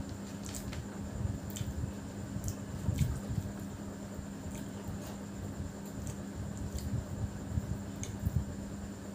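Fingers squishing and mixing biryani rice on a plate, with soft scattered clicks about once a second over a steady low hum.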